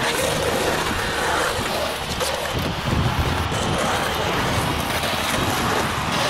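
Skateboard wheels rolling and carving on a concrete bowl, a steady rolling rumble, with wind buffeting the microphone.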